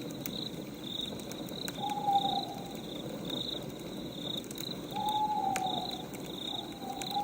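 Night ambience: crickets chirping in a steady train of about two short chirps a second, with an owl hooting about two seconds in, again around five seconds and once more near the end. Scattered sharp crackles of a wood fire run over a low hiss.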